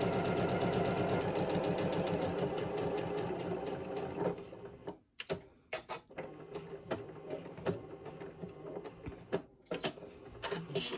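Janome sewing machine stitching at a steady, fast rhythm, stopping about four seconds in just before the end of the seam. After that come only scattered light clicks and taps.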